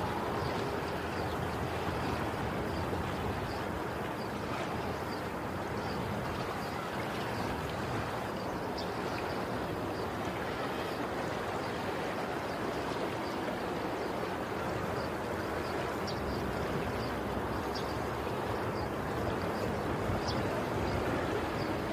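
Steady rushing noise of flowing water, even in level throughout, with faint light ticks scattered through it.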